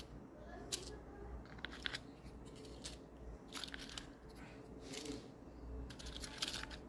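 Paper candy cups holding brigadeiros being set down one at a time on a glass dish: a few short, faint paper rustles and crinkles.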